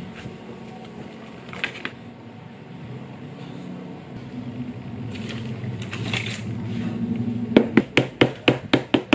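Leather wallet pieces handled and slid against each other, with brief soft rustles, then a quick run of about eight sharp taps near the end as the pieces are laid flat on a cutting mat.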